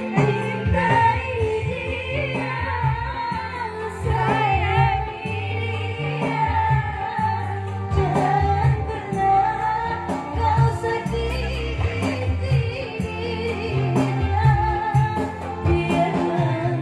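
A woman singing into a microphone over amplified backing music with a steady bass line, heard through a PA during a sound check.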